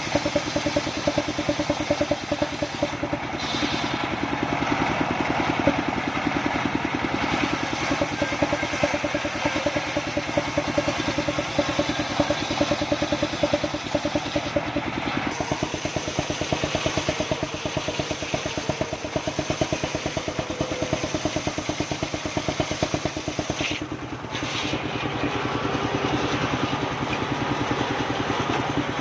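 Engine-driven sawmill machine for cutting sengon logs, running steadily with a fast, even pulse. The high hiss over it thins briefly three times.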